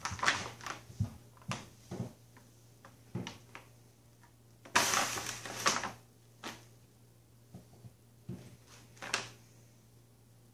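Kittens pawing and pouncing on a cat-litter bag: irregular crinkling and rustling with light knocks, loudest in a longer burst about five seconds in.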